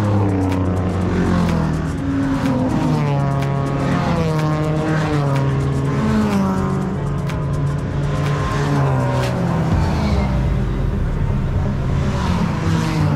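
Race car engines running on track, their pitch repeatedly rising as they rev up through the gears and dropping back.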